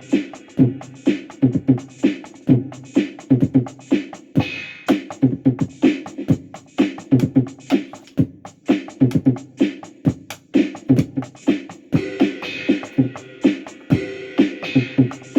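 Music with a steady drum beat and a pitched bass line, about three beats a second.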